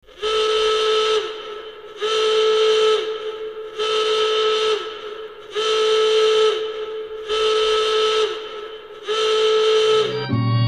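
Warning signal sound effect: a loud, steady whistle-like horn tone sounding six times in long blasts, each about a second long and dropping in pitch as it cuts off. String music begins right at the end.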